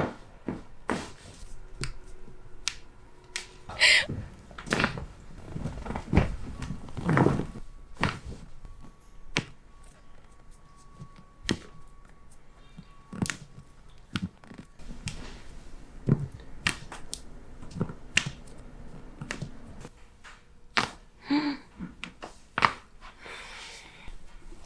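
Chiropractic adjustments: joints cracking and popping in a string of sharp, uneven clicks, several of them loud, mixed with some duller thuds.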